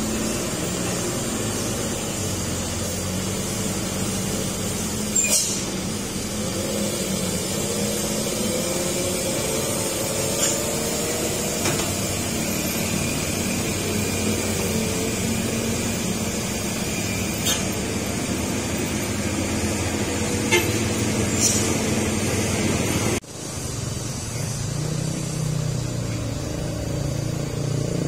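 Heavy Hino truck's diesel engine running slowly as the truck crawls around a tight hairpin, with other road traffic and a few short, sharp sounds. About five seconds before the end the sound cuts abruptly to other passing traffic.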